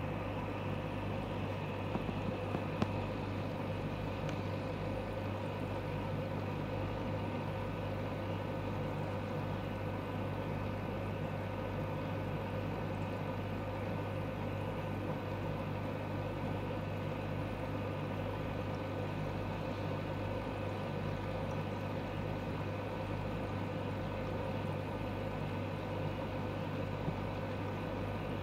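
Steady low electrical hum with fainter higher tones above it, unchanging throughout, with a few faint ticks about two to three seconds in.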